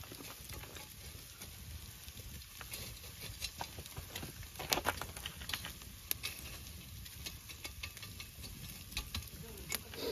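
Open wood fire crackling with irregular sharp pops, a few louder ones in the middle and near the end, over a steady faint hiss from the meat grilling on a grate above the embers.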